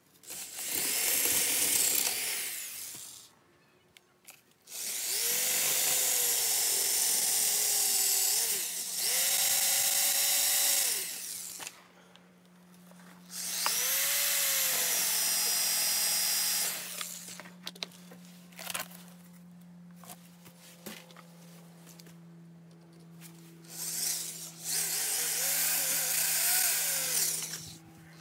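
Electric drill with a 3/8-inch masonry bit drilling mounting holes into a brick wall. It runs in about five bursts of a few seconds each, with short pauses between them, and the pitch slides up and down as the drill speeds up and slows.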